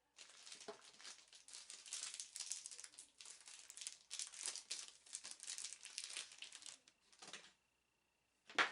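Packaging crinkling and rustling as a makeup brush is unwrapped, in irregular crackles for about seven seconds before stopping. A short, sharp rustle comes near the end.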